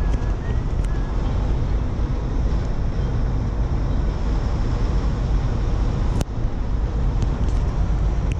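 Steady cabin noise of a Jeep Wrangler at highway speed: a low rumble of tyres and engine with wind rush. A brief click breaks it about six seconds in.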